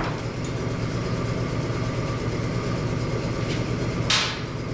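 Steady low mechanical hum, with a short click at the start and a brief hiss about four seconds in.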